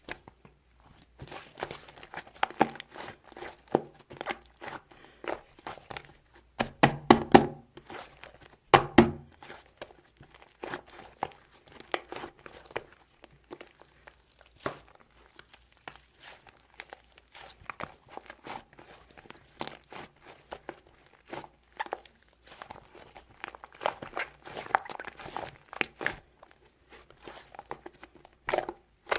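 Soft, fluffy dough squeezed, poked and pulled apart by hand, giving an irregular run of crackling, popping clicks and tearing sounds, loudest about seven and nine seconds in.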